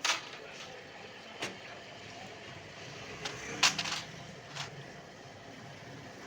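A handful of sharp clicks and knocks from work on a Toyota 2C diesel injection pump, with the loudest cluster a little past halfway, over steady low workshop noise.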